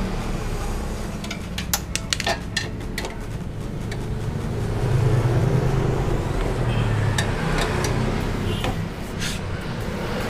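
Metal hand tools and steel bolts clicking and clinking irregularly as the fuel-tank bolts of a Yamaha NMAX scooter are undone, over a steady low hum that swells in the middle.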